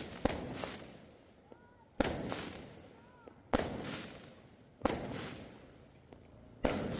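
Fireworks bursting: five sharp bangs, roughly one to two seconds apart, each dying away over about a second.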